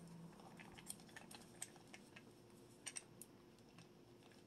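Faint, scattered clicks and light taps of a hard plastic toy dinosaur being handled and turned over in the hands, a few clustered near three seconds in.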